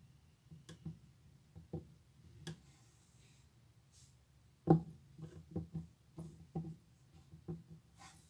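Hands handling a small play-dough table on a desk: scattered soft taps and knocks on the tabletop, with one louder knock about halfway through followed by a run of lighter taps.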